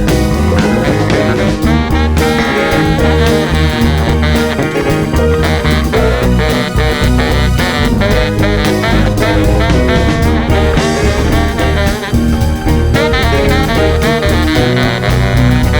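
Band playing an instrumental passage with no singing: drums and bass keeping a steady beat under a horn line.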